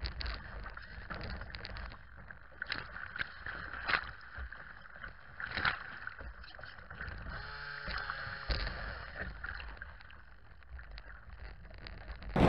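RC model boat running across choppy water, heard from on board: its hull slaps and splashes through the waves at irregular intervals over the steady note of its motor.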